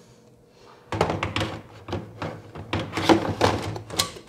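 Toner cartridge of an HP Laser MFP 135wr laser printer being slid back into its bay, a run of plastic knocks and clicks starting about a second in, with a louder knock at the end as it is pushed home.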